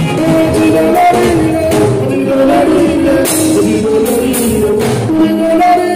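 Fuji music: a singer's voice over a steady, busy percussion beat.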